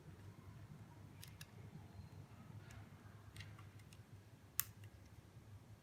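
Faint, scattered clicks and taps of hard plastic from a power bank's detachable plug head being pulled off and handled, with one sharper click about four and a half seconds in.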